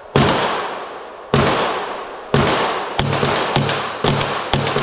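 Sig Sauer P320 RX full-size 9mm pistol fired in aimed shots on an indoor range, each shot a sharp bang followed by a long echoing decay. The first three come about a second apart, then shots follow closer together in the second half.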